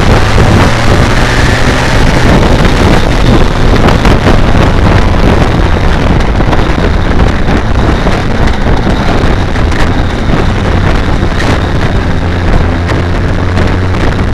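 BMW K1200R Sport's inline-four engine running steadily at low revs on a light cruise, with heavy wind rush over the bike-mounted microphone.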